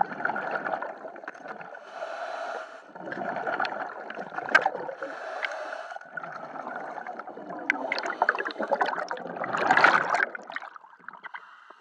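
Underwater gurgling and bubbling heard through a submerged camera, coming in spurts every second or two, with scattered sharp clicks and knocks. A louder surge of water noise rises near the end, then fades.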